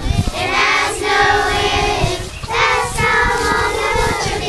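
A group of young girls singing a slow song together, holding each note for about a second, with a short pause for breath about halfway through.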